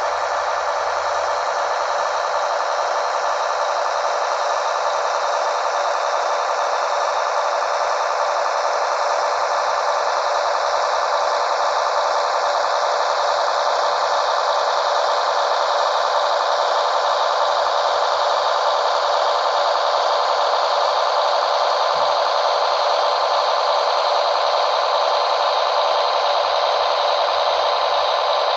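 Diesel engine sound from a Märklin H0 LINT 27 railcar model's digital sound decoder, running steadily through its small built-in loudspeaker, thin in the bass.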